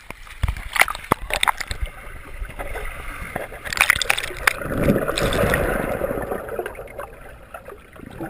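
Pool water splashing and gurgling around a GoPro heard through its waterproof housing: a few sharp knocks and splashes in the first two seconds, then a swell of bubbling water about five seconds in that fades out.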